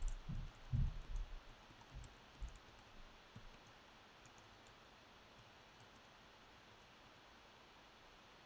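Faint clicks and a few soft, dull thumps of someone working at a desk in the first three seconds or so, then near silence with faint room hiss.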